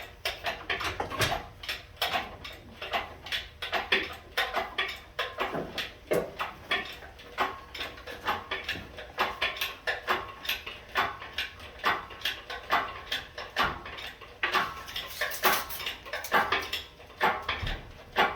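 Irregular metallic clinks and knocks, several a second, from hoisting the engine out of a 1979 Chevy squarebody truck.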